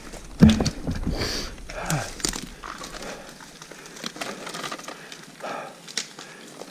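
Brush and branches cracking and scraping in thick undergrowth as an electric dirt bike is forced through it, with irregular knocks and a heavy thump about half a second in.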